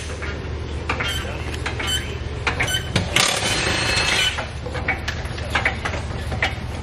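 Auto-shop background noise: a steady low machine hum with scattered metallic clicks and knocks, and a hissing burst lasting just over a second about three seconds in.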